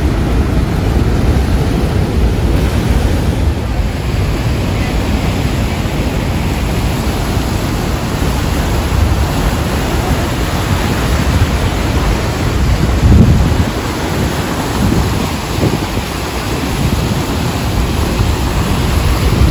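Steady roar of Niagara Falls' falling water, with wind rumbling on the microphone and a brief louder low rumble about two-thirds of the way in.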